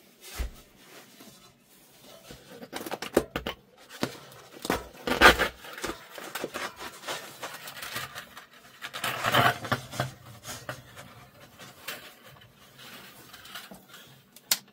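Paper cone of an 18-inch speaker being worked loose and lifted off its metal basket: irregular scraping and rustling of stiff paper and glued edges, with small knocks and two louder scrapes about five and nine seconds in.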